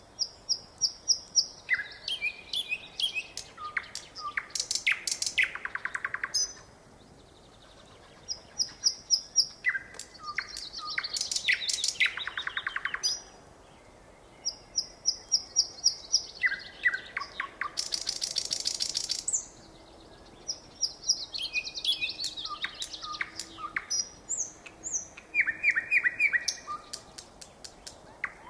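Nightingale singing: four long phrases of repeated high whistled notes and fast clicking rattles, each broken off by a short pause.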